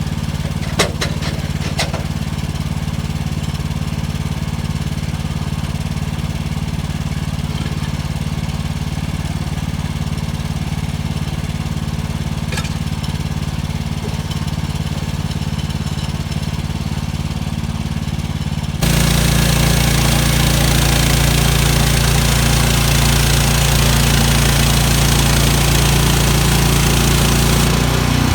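Portable bandsaw sawmill's gas engine running steadily, with a few sharp clicks in the first couple of seconds. About two-thirds of the way through it suddenly gets louder, with a dense rushing noise added on top of the engine.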